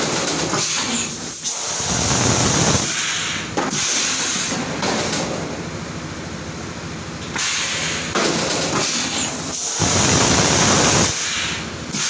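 Semi-automatic PET stretch blow moulding machine cycling: several loud hissing blasts of compressed air, a few seconds apart, as bottles are blown and the moulds vent, over a steady low hum.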